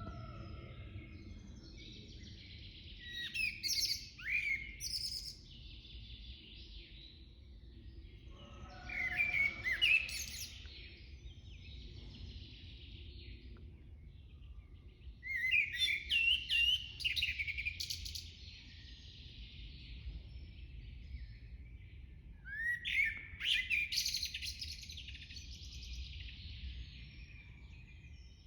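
Forest songbirds singing in four short bursts of chirping phrases spaced several seconds apart, over a faint steady low rumble.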